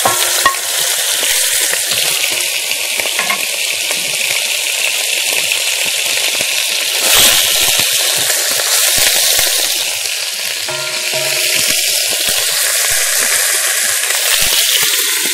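Pieces of bone-in meat sizzling in hot oil in a nonstick pan as they are lightly seared: a steady, loud frying hiss, briefly louder about seven seconds in.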